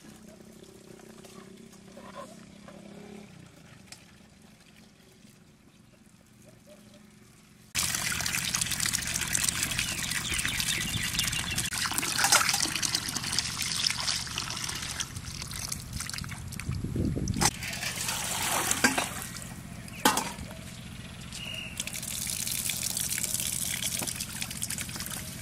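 Tap water from a plastic barrel spigot running into a stainless steel bowl as vegetables are rinsed by hand in it, with several sharper splashes. It is faint for the first several seconds, then suddenly much louder from about eight seconds in.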